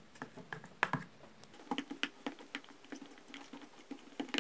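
Plastic spoon stirring paint into glue in a plastic bowl: faint, irregular clicks and taps of the spoon against the bowl, several a second.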